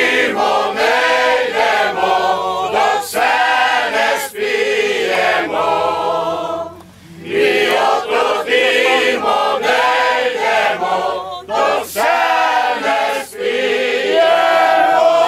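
A group of men singing together unaccompanied, in sung phrases with a short break about seven seconds in. Near the end a voice holds a long steady note.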